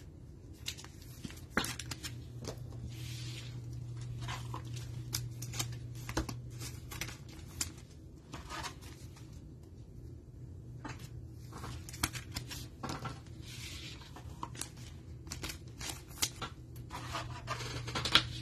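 Trading cards being handled and slid into plastic sleeves and rigid top loaders by gloved hands: scattered light clicks, scrapes and rustles of card and plastic, over a steady low hum.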